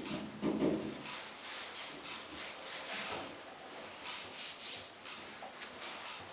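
Miele PW6055 Plus commercial washing machine in its main wash: the drum turning with water and a net curtain swishing inside, coming in repeated swells, loudest about half a second in.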